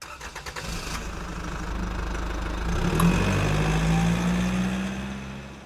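Engine revving up, its pitch rising slowly as it swells in loudness, then fading away near the end.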